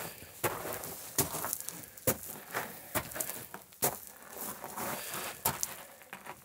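Footsteps crunching on loose, broken rock rubble, with small stones clinking and shifting, in uneven steps.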